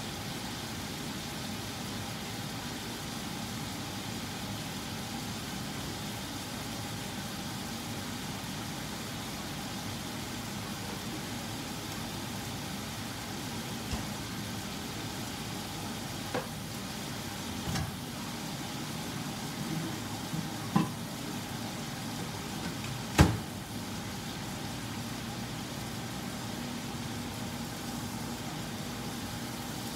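Steak pieces sizzling steadily in a frying pan over a low hum, with a few sharp clicks and knocks in the second half, the loudest about two-thirds of the way through.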